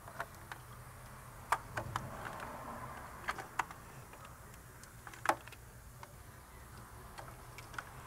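Plastic clicks as wiring-harness connectors are pushed onto a Chevy Impala's new engine computer (ECM) and snapped home: a scattering of sharp clicks, the loudest about five seconds in, over a faint steady low hum.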